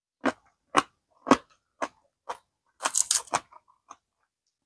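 Raw green onion stalks crunching: a series of crisp, sharp cracks about half a second apart, then a quicker cluster of cracks around three seconds in.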